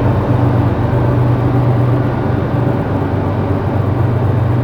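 Coal train passing with a steady, loud low rumble.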